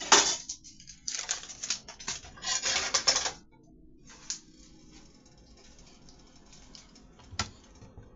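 Kitchen clatter as food is worked in a cooking pot: a sharp knock, then a few seconds of rapid rattling and clicking, then a low steady hiss with one more click near the end.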